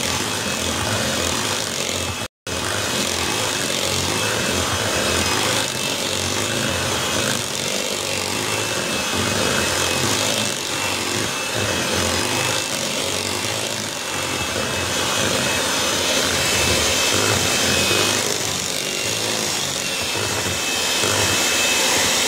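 Electric hand mixer running steadily, its beaters whipping a thick cream cheese and pudding mixture in a bowl, with a steady high whine from the motor. The sound cuts out for an instant about two seconds in.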